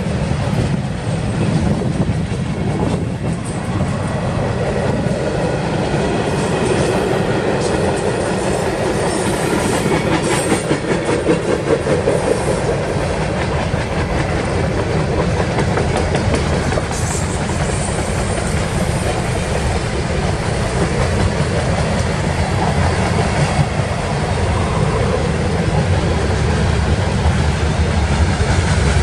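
Freight train cars (tank cars and covered hoppers) rolling past, with a steady noise of steel wheels running on the rails.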